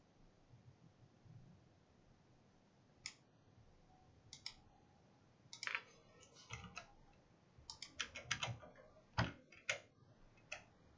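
Faint, scattered computer mouse clicks: single clicks at first, then quick runs of several clicks in the second half.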